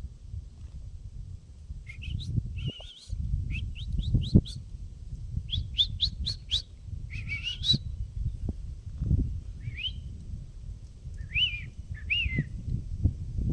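A songbird singing a rapid series of short rising whistled notes, then three separate slurred calls, over a low fluctuating rumble of wind on the microphone.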